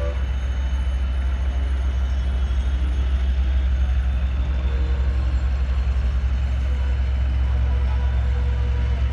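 Steady low engine rumble of a diesel freight locomotive approaching along the track, mixed with the general noise of city traffic.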